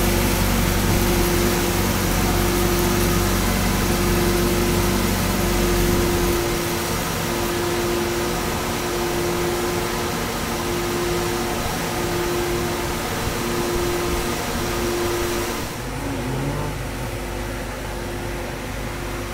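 Honda CBR1000RR's inline-four with an Akrapovic exhaust idling on the dyno, then shut off about six seconds in. A steady fan-like hum carries on after the engine stops.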